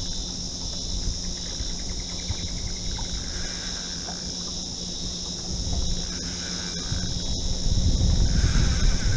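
A steady chorus of insects buzzing, with a higher buzz that comes and goes in spells of a second or so. A low rumbling noise grows louder near the end.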